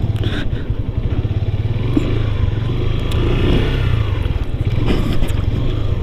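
Yamaha FZ motorcycle's single-cylinder engine running steadily at low speed while the bike pushes a stalled motorcycle along by the rider's foot.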